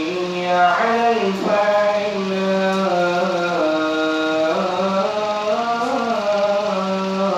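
A solo voice chanting melodically in long, held notes that slide from one pitch to the next, with a brief upward flourish about a second in.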